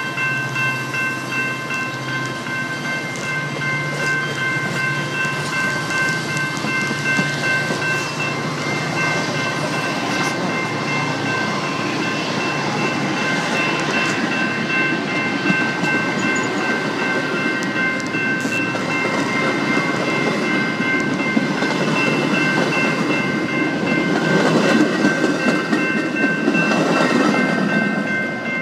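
Metra stainless-steel bilevel passenger cars rolling past at close range as the outbound train pulls away, wheels clacking over the rails, with steady high tones throughout. It grows louder near the end as the last car, the cab car, goes by.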